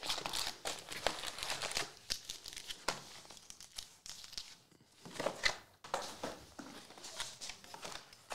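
Foil trading-card packs crinkling and rustling as they are lifted out of a card box and stacked, in irregular crackly handling noise with a short lull about halfway through.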